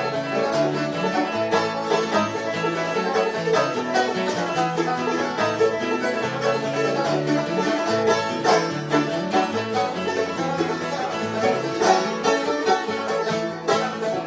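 Bluegrass band playing an instrumental passage: a banjo picking over acoustic guitar, with a bass line stepping from note to note underneath.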